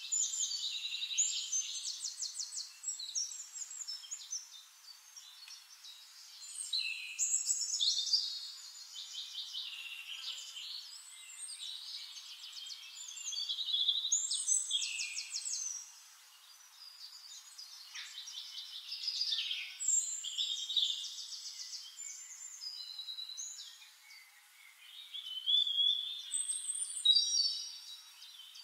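Small birds chirping and singing, with rapid high trills in phrases that come and go every few seconds.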